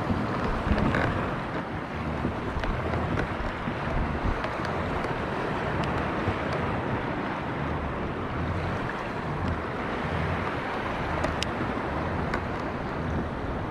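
Wind buffeting the microphone over water lapping against a kayak hull, a steady noisy rush with a rumbling low end and a few faint ticks.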